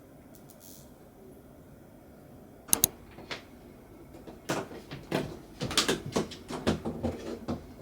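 Objects being handled: a sharp double click about three seconds in, then a busy run of irregular knocks, clicks and rustles.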